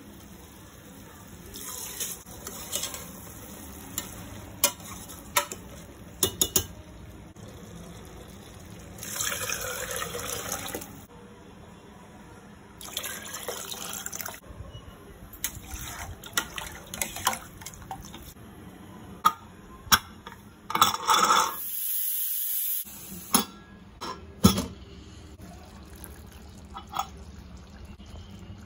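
Water poured in several short spells, with pots and utensils clinking and knocking in between.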